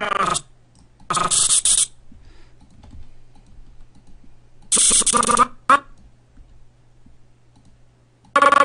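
Short, abruptly cut snippets of a recorded cartoon character's voice, played back as a Blender animation timeline is scrubbed: about four bursts of half a second to a second each. Between them come soft computer keyboard and mouse clicks over a steady low hum.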